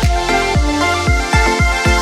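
Electronic background music with a steady kick-drum beat and short synth notes.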